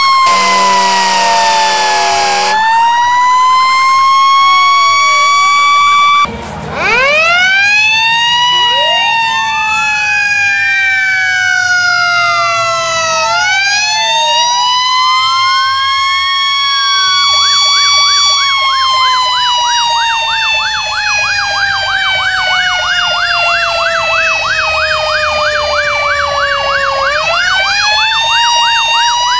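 Fire engine sirens: a siren winding down under a steady horn blast for the first couple of seconds, then, after a short break, several sirens wailing up and down and overlapping, joined about halfway through by a fast yelping siren.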